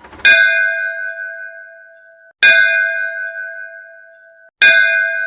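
Three identical bell-like chime strikes about two seconds apart, each ringing down and then cut off abruptly.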